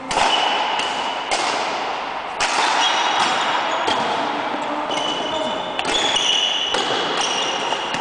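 Badminton rally: a string of sharp racket hits on the shuttlecock, each ringing on in the echo of a large gym hall, with short high squeaks of sports shoes on the floor between the hits.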